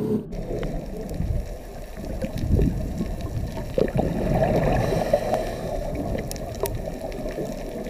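Muffled rushing and gurgling water heard through a camera held underwater while snorkelling, with a few faint clicks.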